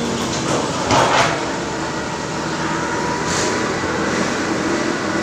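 Diesel forklift engines running steadily as two forklifts carry a heavy steel-framed machine load together. A brief, louder noisy burst about a second in and a shorter hiss a few seconds later break the steady engine noise.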